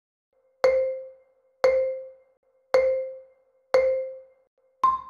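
Quiz countdown timer sound effect: five short pitched pings about a second apart, each dying away quickly, the last one higher in pitch.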